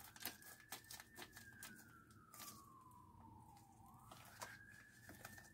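A faint siren wailing, its pitch falling slowly and rising again about four seconds in, over light snips and clicks of scissors cutting open a mailing envelope.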